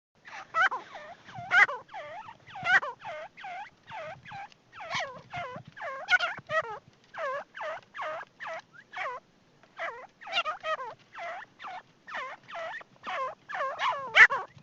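Teetar (partridge) calling: a long run of short, sharp, repeated notes, about two to three a second, starting just after a moment of silence.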